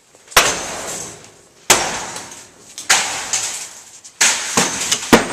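A hammer smashing into a television five times, about one blow every second and a quarter, each strike followed by a crash of shattering glass and plastic debris.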